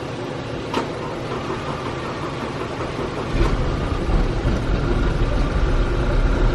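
Audi A4 B8 TSI engine running, with a single sharp click just under a second in; about three seconds in it grows louder with a deep, uneven pulsing. It is misfiring, the engine running rough on a bad fuel injector.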